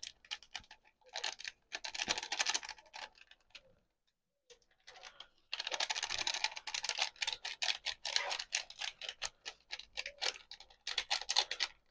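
Plastic seasoning sachet crinkling in rapid crackly bursts as it is squeezed and shaken out over the pan, in three spells with pauses between.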